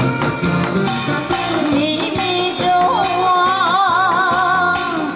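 A woman singing over a backing track with drums, holding a long note with a wide vibrato in the second half.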